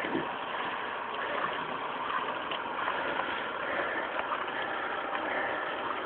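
Steady rushing noise of wind and road on a moving camera's microphone while riding along a road.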